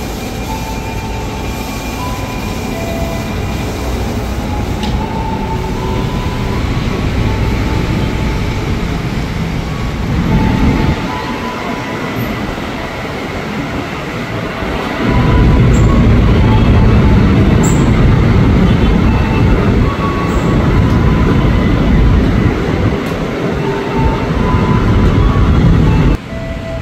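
Electric commuter trains (KRL EMUs) running: a steady low rumble of motors and wheels on rail, with short high tones over it. It jumps much louder about halfway in and drops off suddenly near the end.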